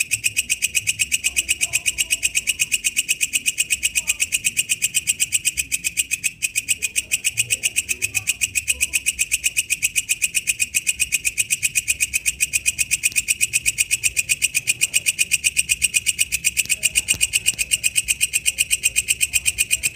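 Walang kecek katydid calling: a loud, even, rapidly pulsed buzzy trill at about five pulses a second, kept up without a break.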